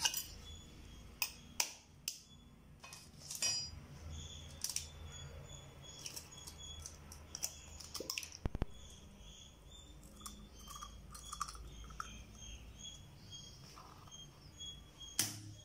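A steel spoon and an egg tapping and clinking against a bowl in a series of sharp taps, as an egg is cracked open into the bowl. A bird chirps repeatedly in the background.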